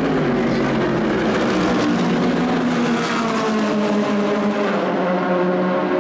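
Racing car engine running at high revs. Its pitch falls in the first second, then climbs steadily for about three seconds and drops again near the end.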